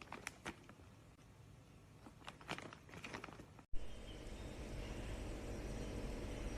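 A dog chewing a chewy dog treat: a run of irregular crunching and clicking bites for about three and a half seconds, then a sudden cut to steady background hiss.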